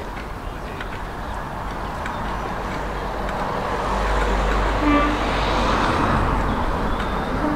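Class 37 diesel locomotive's English Electric engine running as it approaches, growing steadily louder, with a short horn toot about five seconds in.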